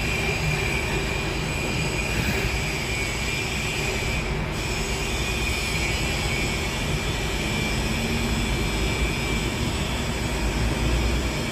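Steady, unbroken machine noise with a faint high whine running through it, likely workshop machinery.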